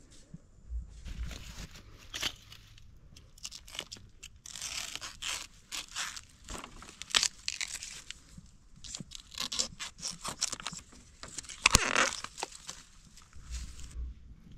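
Irregular crunching and rustling of dry bamboo leaves and stalks while wild bamboo shoots are cut and handled with a machete. One sharp knock near the end is the loudest sound.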